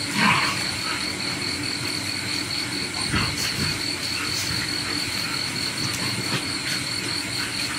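Night insects, crickets among them, trilling steadily in one high unbroken note over a steady low background noise, with a few faint light knocks of tableware.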